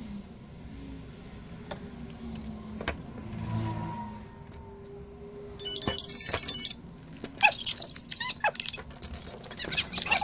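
Light metallic clicks and rattles from small hand tools being handled on a workbench, thickening into a busy cluster of clicks in the second half.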